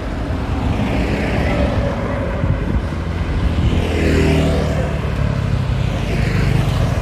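Road traffic going past: motor vehicles pass about four seconds in and again near the end, their engine and tyre noise swelling and fading over a steady low rumble.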